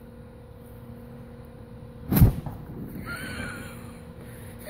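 A single sharp explosion about two seconds in, as a charge in a rat burrow in the lawn goes off, followed by a brief low rumble.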